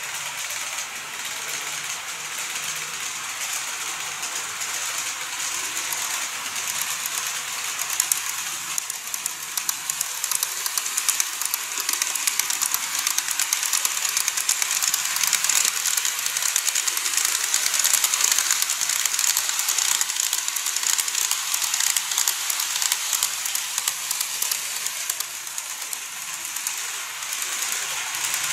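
KATO N-gauge model of a JR Kyushu 415 series 100 EMU running over the track: a rapid, fine clicking rattle of its wheels on the rails. It grows louder as the train comes across the bridge, is loudest about two-thirds of the way through, then eases off.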